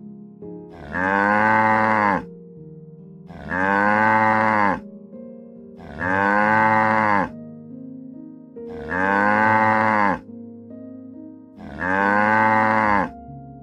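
Cow mooing five times at an even pace, one long call every two and a half seconds or so, each rising and then falling in pitch, over soft background music.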